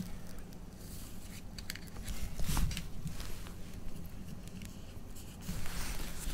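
Light handling of clear plastic card sleeves and rigid top loaders by gloved hands: a few soft clicks and taps, then a brief rustle of plastic near the end.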